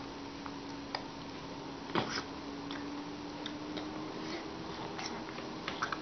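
A baby sucking on a lemon half: irregular small wet lip smacks and mouth clicks, the loudest about two seconds in, over a steady faint hum.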